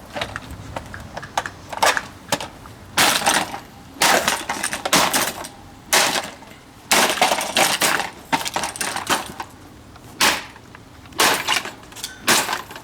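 SMC plastic table fan being smashed: about ten hard, irregularly spaced blows, each with a short crash of cracking and rattling plastic.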